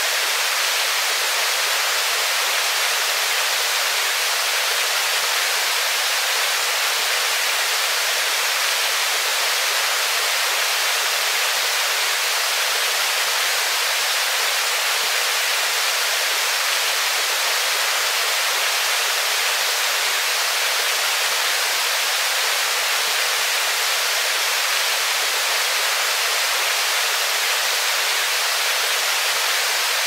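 Waterfall: a steady, even rush of falling water, mostly high hiss with almost no low rumble.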